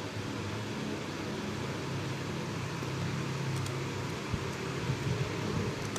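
Steady low hum and hiss of background room noise, with a few faint clicks in the second half.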